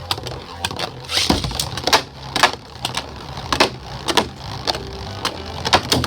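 Two Beyblade spinning tops battling in a stadium, with irregular sharp clacks as they strike each other and the stadium walls.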